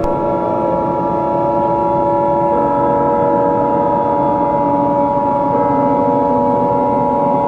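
Emergency Alert System attention signal: the steady two-tone alarm of 853 and 960 Hz sounding continuously, over a lower droning background whose pitch shifts about two and a half and five and a half seconds in.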